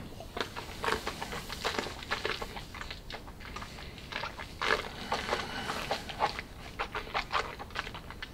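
Wet mouth sounds of a person working a sip of whisky around the mouth: irregular smacks, slurps and breaths, with small clicks.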